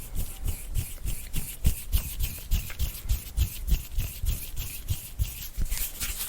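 Two hands rubbing briskly together, palm sliding on palm in quick back-and-forth strokes, about three to four a second, each stroke a dry swish with a soft thump.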